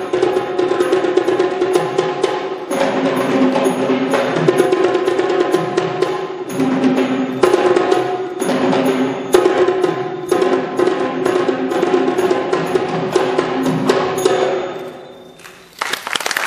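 Live drumming on a double-headed barrel drum, in fast, dense strokes over a steady held melody line, accompanying a Kandyan-style vannam dance. The music stops about 15 seconds in, and applause starts just before the end.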